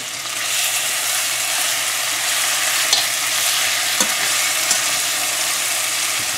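Vegetable oil and curry paste sizzling in a metal pot as stuffed bitter melons (karela) fry in it, the sizzle swelling about half a second in. A spoon turning the melons knocks lightly against the pot a few times. This is the currying stage, the melons being fried in the curry paste before the coconut milk goes in.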